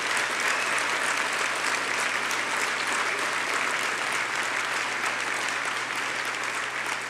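Audience applauding, a steady even clapping that eases off slightly near the end.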